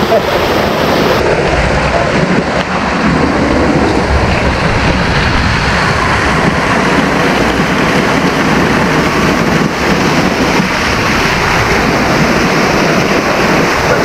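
Waterfall rushing loudly and steadily close by, with wind rumbling on the microphone.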